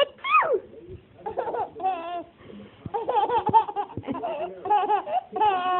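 A baby laughing in repeated bursts of wavering, high-pitched giggles and squeals, the laughter set off by its mother's sneezing.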